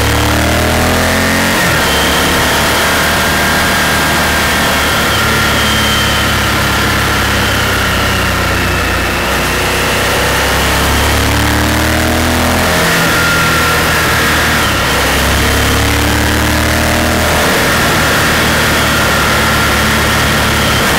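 Honda Varadero's V-twin engine under way through bends, its pitch rising under throttle and dropping back several times, over a steady rush of wind noise.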